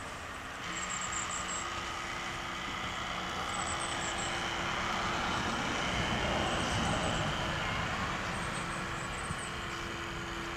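Radio-controlled model boat's electric motor running steadily: a constant low hum over a steady rushing noise.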